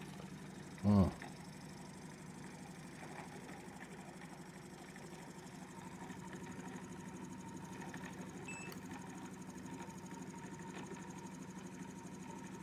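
Reed-switched pulse motor running steadily: a continuous buzzing hum from the pulsed coils and the spinning rotor, getting slightly louder about halfway through.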